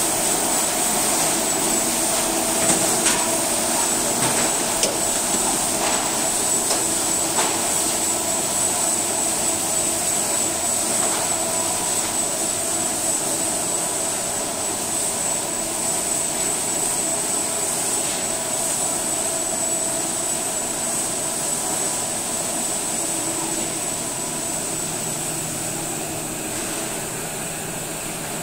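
Crab-processing line machinery running steadily: a constant mechanical hum with a high, even whine over it. A few sharp knocks and clatters come in the first ten seconds or so, and the noise eases slightly in the second half.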